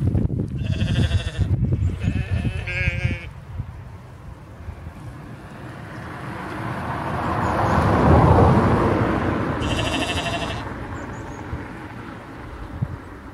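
Black-faced sheep bleating: two bleats in the first three seconds, the second one quavering, and a third about ten seconds in. Between them a rushing noise swells up and fades away over several seconds, the loudest sound here.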